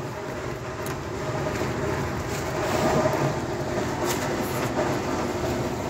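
A 0.5 HP wet garlic peeling machine running, its motor and stainless-steel drum giving a steady hum and rumble. A few light knocks are heard about a second in and again near the fourth and fifth seconds.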